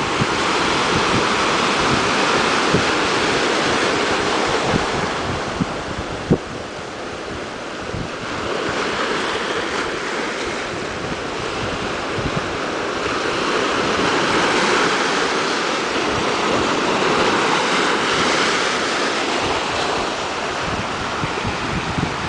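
Ocean surf breaking and washing over rocks at the shoreline, a steady rush that swells and eases as each wave comes in. Wind buffets the microphone with low thumps in the first few seconds.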